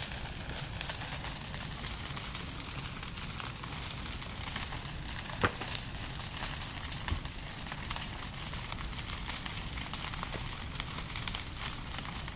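Fire crackling steadily with a constant hiss and many small snaps, with one sharp, loud pop about five and a half seconds in and a smaller one a second or so later.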